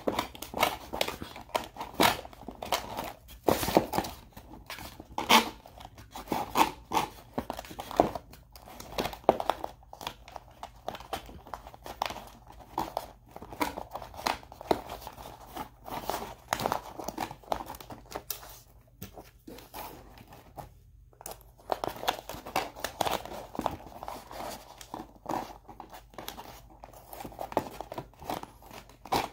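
Hands untwisting wire twist ties and working small plastic pieces free from a cardboard backing card: irregular crinkling, rustling and small clicks, with a brief lull about two-thirds of the way through.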